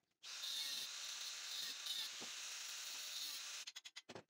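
Handheld angle grinder with a grinding disc grinding steel: a steady hiss that starts just after the beginning and cuts off abruptly about three and a half seconds in. A quick run of sharp clicks follows near the end.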